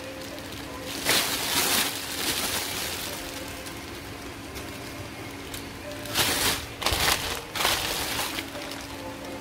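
Clear plastic wrapping on big rubber dinosaur toys crinkling and rustling as the bagged toys are grabbed and moved. It comes in bursts, once about a second in and several times between about six and eight seconds in.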